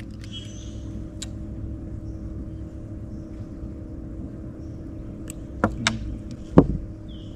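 A boat's motor running with a steady low hum, with a few sharp clicks and knocks near the end, the loudest about six and a half seconds in.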